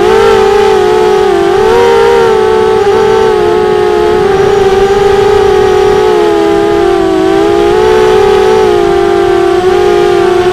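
ImmersionRC Vortex FPV racing quadcopter's brushless motors and Gemfan 5x4 propellers whining loudly, heard from the aircraft's own camera, the pitch wavering up and down with the throttle as it flies.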